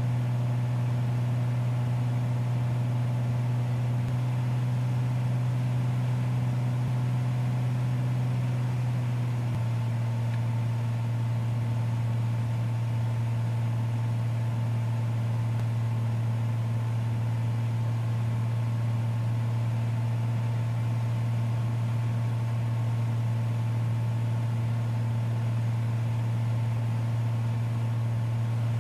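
Piper Cherokee 235's six-cylinder Lycoming engine and propeller droning steadily in the cockpit on final approach, dropping slightly in pitch about ten seconds in.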